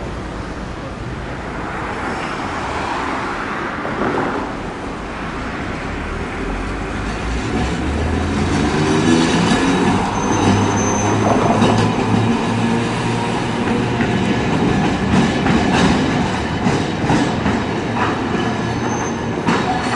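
Hiroden 1900-series streetcar No. 1914 running slowly through the curve onto the main line. It gets louder about halfway through, with a run of wheel clicks over the rail joints and points, and brief high wheel squeals twice.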